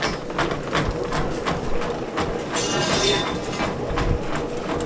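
Motorized sewer drain-cleaning machine running, its cable clattering with irregular knocks several times a second over a steady motor hum.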